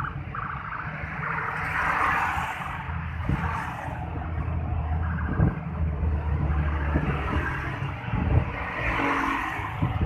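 Street traffic: motorcycle and car engines running on a city road, with a steady low engine hum and vehicles swelling past about two seconds in and again near the end.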